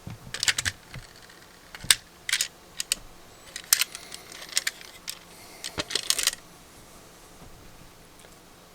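Sharp clicks and short rattles of small plastic and metal parts being handled, about a dozen in the first six seconds, then they stop.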